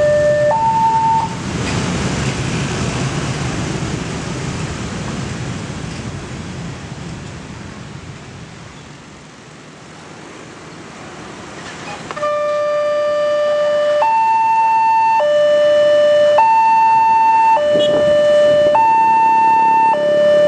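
Indonesian railway level-crossing alarm sounding its two-tone electronic warning, a low and a high tone alternating about every second, which stops about a second in. Motorcycle and car traffic then rumbles across the crossing and fades, and about twelve seconds in the alarm starts again, warning of an approaching train.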